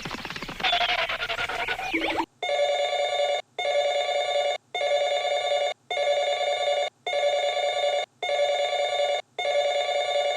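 Electric ringing tone with a fast trill, like a bell or phone ringer, starting a couple of seconds in and repeating about once a second in one-second rings with short gaps. Before it come brief warbling, gliding squeaks.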